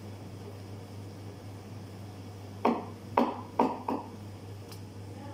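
Espresso machine running with a steady low hum while a shot pours. A bit past halfway, four quick sharp knocks or clicks sound in a row, louder than the hum.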